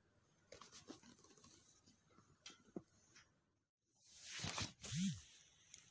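Faint rustles and clicks from a phone handled close to the microphone. After an abrupt break, a louder breathy rush ends in a short voiced sound that rises and falls in pitch.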